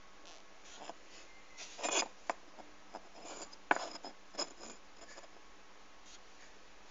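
Scattered rubbing and clicking from a phone handled close to its microphone, loudest about two seconds in and again just before four seconds.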